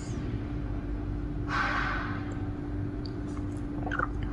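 Steady low hum of room tone, with one short breath from a person about a second and a half in and a few faint clicks near the end.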